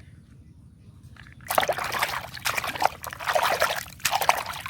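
Water splashing and trickling over a muddy toy as it is rinsed clean, starting about a second and a half in and coming in uneven gushes.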